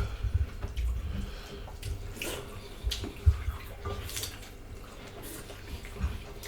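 Close-miked eating sounds: wet chewing and mouth noises with scattered clicks and soft knocks.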